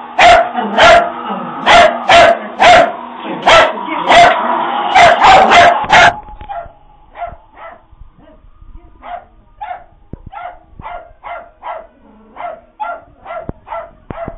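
Small puppy barking in alarm at a Halloween prop: loud, sharp barks about two a second, which drop suddenly to fainter barks about six seconds in and keep coming at a slightly slower pace.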